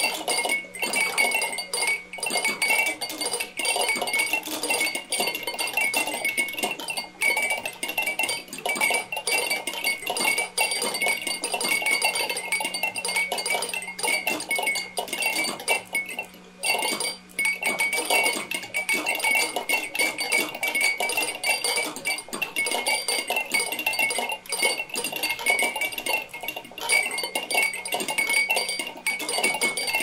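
Hundreds of glass drinking-bird toys bobbing at once: a dense, unbroken clatter of small clicks over a few steady ringing tones. A low steady hum drops out about two-thirds of the way through.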